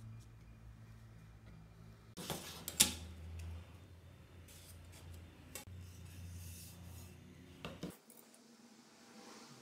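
A steel ruler handled against a wooden plank on a cutting mat, with a sharp metallic clatter about two seconds in and a few lighter clicks after, between the faint rub of a marker drawn along the ruler's edge.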